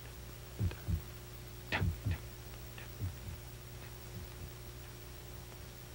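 Heartbeat sound effect: paired lub-dub thumps about once a second, weakening and fading out after about four seconds, over a steady low hum.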